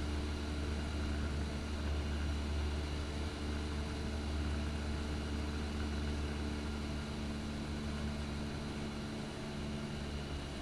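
Cessna 172's piston engine and propeller running steadily in cruise, a constant drone heard inside the cabin.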